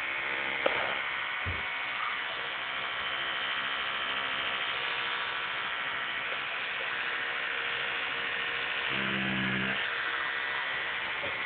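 Children's battery electric toothbrush running with a steady buzz. A short, lower-pitched hum joins it about nine seconds in.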